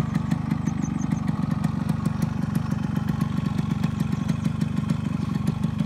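Yamaha RX-100's two-stroke single-cylinder engine idling steadily.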